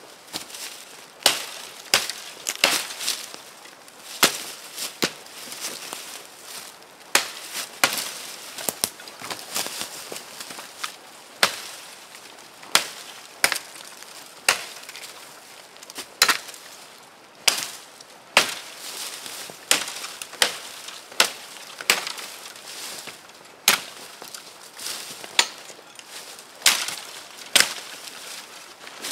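A hatchet chopping into a fallen log: sharp, woody strikes at an irregular pace of about one a second, with short pauses between runs of blows.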